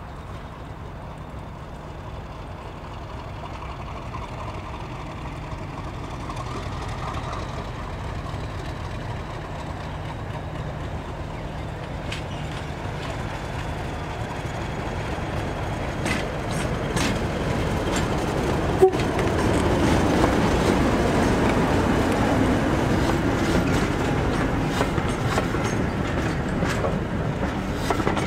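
Diesel-hauled train approaching and passing, growing steadily louder over a steady low engine note, with the wheels clicking over rail joints from about halfway in and one sharp click just before the loudest point.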